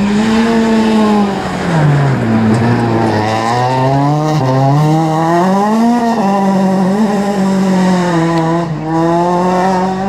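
A small Renault rally car's four-cylinder engine at high revs on a gravel stage. The revs drop for the corner about two seconds in, then climb steadily as it accelerates away, and they stay high through the rest.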